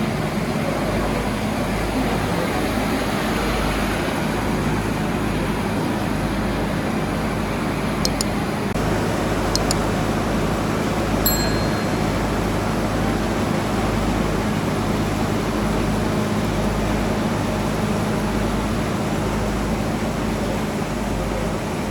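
Steady mechanical hum under a rumbling noise, with wind buffeting the microphone, and a few sharp clicks around the middle.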